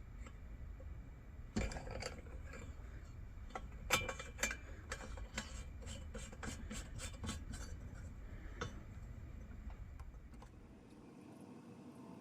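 Small metal lantern parts being handled at a workbench: a few sharp knocks, then a run of light clicks about three a second that stops about two-thirds of the way through.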